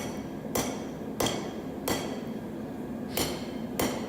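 Hand hammer blows forging a steel rebar bar square, about one blow every two-thirds of a second with a pause in the middle. Each blow gives a short metallic ring.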